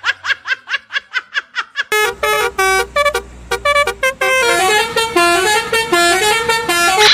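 Telolet multi-tone bus horn. It opens with a fast run of short repeated chirps, about eight a second. From about two seconds in it plays a tune of held horn notes stepping up and down in pitch.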